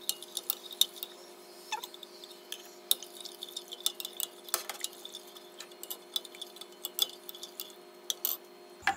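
Metal spoon stirring a liquid gelatin mixture in a glass saucepan, clinking and tapping against the glass many times in quick, irregular clicks, over a faint steady hum.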